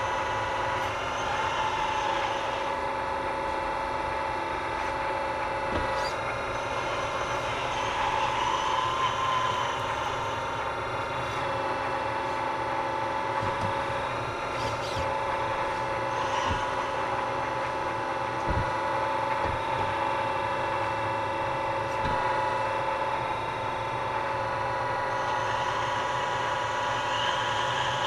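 Scale RC construction machines running: a steady mechanical whine and engine-like drone, swelling now and then, with a few sharp clicks.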